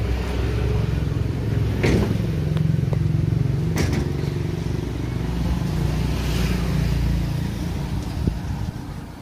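A motor vehicle's engine running steadily, then fading away near the end, with two sharp clicks about two and four seconds in.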